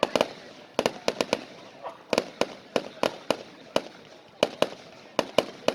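Fireworks going off in quick, irregular succession: sharp cracks, roughly three a second, each followed by a short echo.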